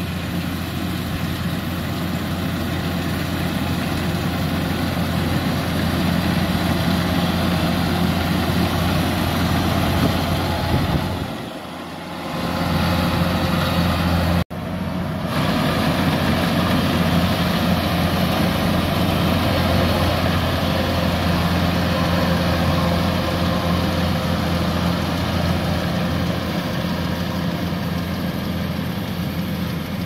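Kubota DC-105X combine harvester running steadily while cutting rice, a continuous low engine drone. It dips briefly about a third of the way in and cuts out for an instant near the middle.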